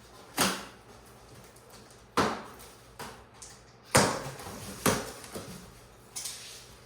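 Sharp knocks and thumps from a boxed fridge and its packaging being handled and opened, with softer scraping and rustling between. There are four loud knocks, one near the start and three more from about two seconds in.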